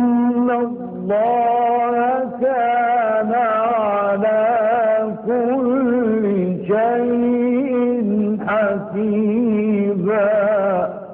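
A male Quran reciter chanting in the melodic, drawn-out mujawwad style: one long breath of ornamented, wavering melody in several connected runs, cutting off near the end.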